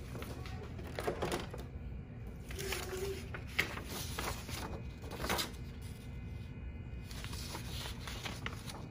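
Sheets of printer paper rustling and shuffling as they are handled, in several short bursts over a low steady hum.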